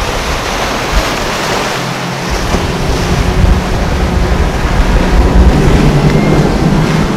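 Twin Mercury outboard engines on a Freeman catamaran running under power, a steady low drone that grows louder in the second half as the boat passes close by. Under it, a steady rush of surf, spray and wind on the microphone.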